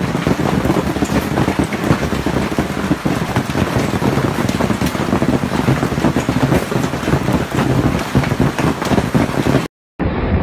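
Hailstorm: hail pelting down in a dense, continuous clatter of countless small hits. It cuts off abruptly near the end.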